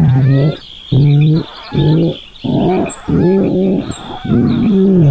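A cartoon character's wordless voice: a run of about seven short, low vocal sounds, each rising or falling a little in pitch, with brief gaps between them.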